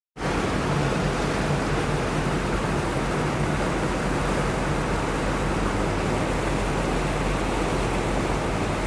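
Steady rushing noise of a river boat under way: wind and water, with a low steady hum beneath. The sound cuts out for a split second at the very start.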